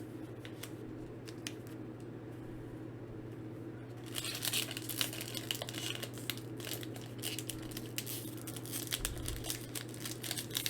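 Foil wrapper of a Pokémon XY Evolutions booster pack crinkling and tearing as it is opened by hand. It starts about four seconds in, after a few faint handling clicks, over a steady low hum.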